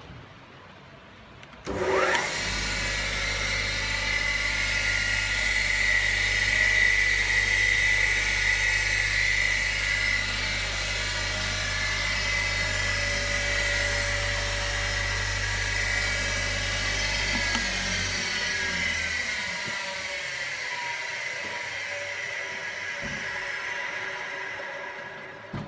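Abwood TG170 tool and cutter grinder's wheel spindle motor switched on, spinning up in under a second to a steady whine with mains hum. About sixteen seconds later it is switched off and the wheel coasts down with a slowly falling whine, ending with a click.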